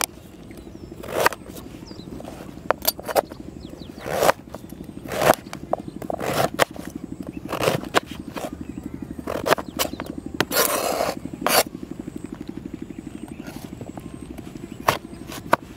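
Kitchen knife cutting firm peeled guava on a plastic cutting board: irregular sharp knocks as the blade goes through the fruit and strikes the board, and a longer scraping sound about ten and a half seconds in. A steady low hum runs underneath.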